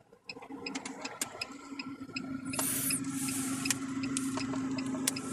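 Car turn-signal indicator clicking steadily about twice a second inside the cabin, over the low hum of the engine as the car pulls out into a turn.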